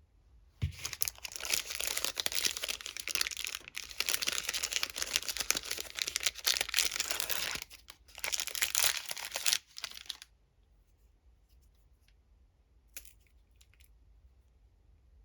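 Candy wrapper being torn open and crinkled: dense crackling that goes on for about nine seconds with a brief pause, then stops, leaving only a few faint ticks.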